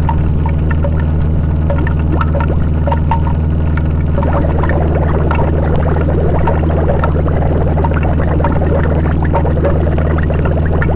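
Harsh noise music: a loud, steady low drone under a dense scatter of clicks and crackle, which grows busier about four seconds in.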